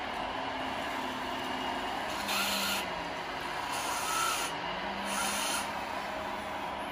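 A radio-controlled construction model at work: a steady motor hum with a faint low whine that shifts slightly in pitch, and three short hissing bursts of about half a second each, about a second apart, starting a little after two seconds in.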